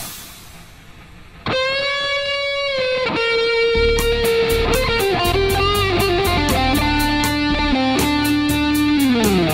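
Background music: a fading noisy wash, then electric guitar holding long notes that step down in pitch, with a final note bending downward near the end. A steady high ticking beat joins about four seconds in.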